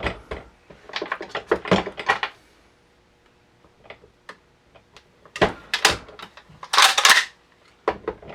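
Metal clicks and clacks of a stainless-steel pump-action shotgun being handled and its action worked. There is a quick run of clicks at first, a few faint ticks, then more clicks and a short scraping rasp near the end.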